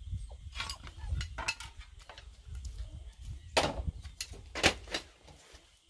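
Sharp knocks and clacks of wooden sticks and offcuts being picked up and handled, with two louder knocks in the second half.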